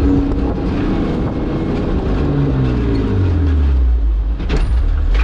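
Nissan Patrol's swapped-in Skyline engine revving up and down under load as the truck climbs a rough trail, heard from inside the cab. There is a single knock about four and a half seconds in.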